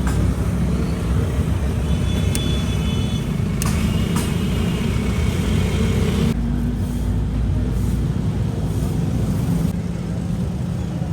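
Steady low rumble of a running engine, with a few sharp clicks and a high ringing clatter that cuts off suddenly about six seconds in.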